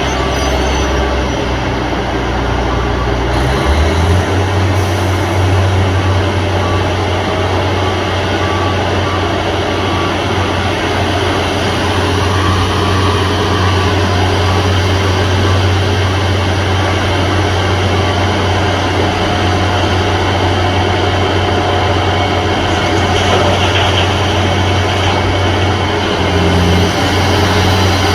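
Heavy road-repair machinery running steadily with a loud, deep engine hum that steps up slightly in pitch about three and a half seconds in, then holds.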